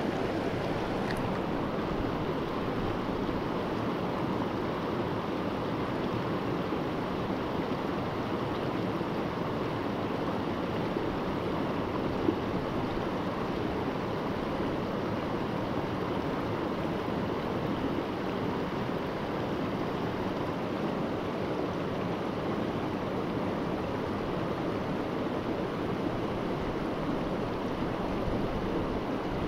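River rapids rushing: a steady, even noise of fast-flowing current over rocks, loud enough to crowd out speech. There is one brief knock about twelve seconds in.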